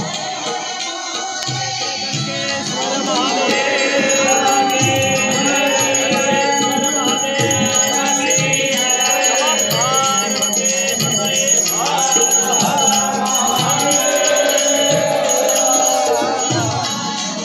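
Indian devotional music with a steady drum beat, hand percussion and a gliding melodic line. It grows louder about three seconds in.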